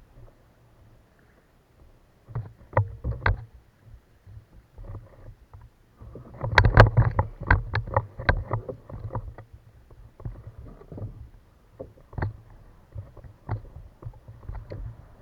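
Irregular sharp knocks and thumps on a kayak, with a busy, louder run of knocks in the middle.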